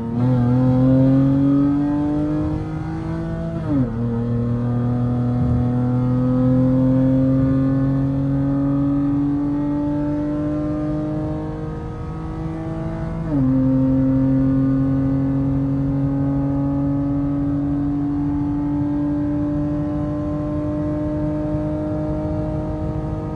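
Dodge Charger's engine accelerating onto a highway in sport mode, its pitch climbing steadily and dropping sharply at two upshifts, about 4 seconds and about 13 seconds in. After the second shift it keeps pulling with a slow, steady rise in pitch.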